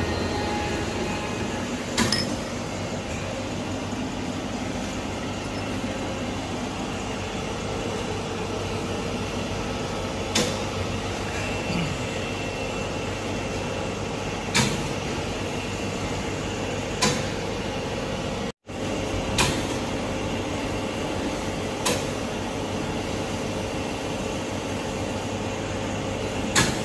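Thread rolling machine running with a steady hum and hiss while it rolls threads onto high-tensile bolts. A sharp metallic clank comes every few seconds, about seven in all.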